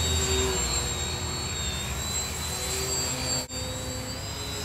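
Electric motors and propellers of small Hobby City Piaget RC foam planes whining in flight, two or more at different pitches that drift slightly as the planes manoeuvre. The sound cuts out briefly about three and a half seconds in.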